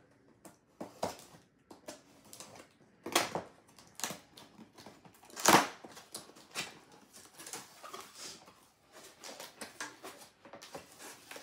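Packing tape on a cardboard box being cut with scissors and peeled away, then the box flaps opened: irregular scrapes, crackles and rustles, loudest about three and five and a half seconds in.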